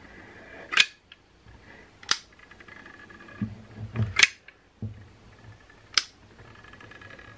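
Hand caulking gun clicking four times, a second or two apart, as its trigger is pumped to push out a bead of caulk, with soft handling knocks between the clicks.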